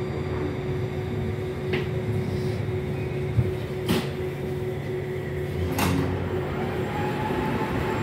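Moscow metro train coming to a stop at a station, heard from inside the carriage: a steady running hum with three sharp knocks about two seconds apart. Near the end the carriage's sliding doors open.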